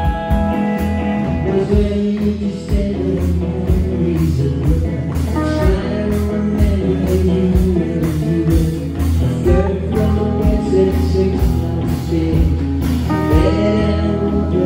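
Live rock band playing amplified electric guitars and bass guitar, with a steady beat of regular hits under sustained guitar notes.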